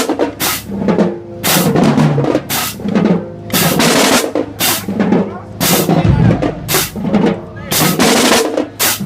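Marching band drumline playing a marching cadence: snare drums rattling over bass drum hits in a steady, loud beat.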